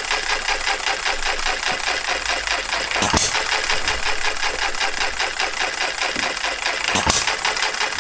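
Scale-model Farm Boy hit-and-miss engine running on its governor: a fast, steady mechanical clatter from the spinning flywheels and valve gear. Two sharp cracks about four seconds apart, near 3 s in and again near 7 s in, where the engine fires as it drops to its kick-in speed.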